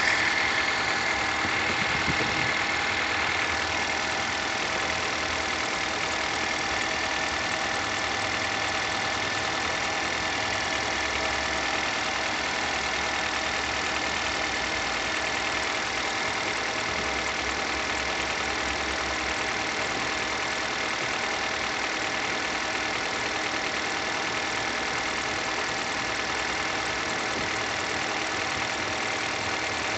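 Car engine idling with its alternator drive belt squeaking, a steady high squeal over the engine that is loudest in the first few seconds.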